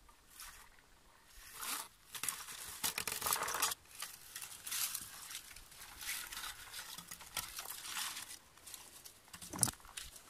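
Plastic hand-held berry picker (blueberry rake) combed through low bilberry bushes in repeated strokes, its teeth rustling and crinkling through the leaves and twigs as it strips the berries. There is a sharper knock near the end.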